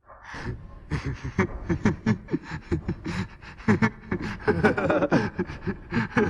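A man's maniacal villain laugh, performed by a Russian-dub voice actor. It starts as a breathy chuckle and builds into rapid, pulsing cackles that grow louder toward the end.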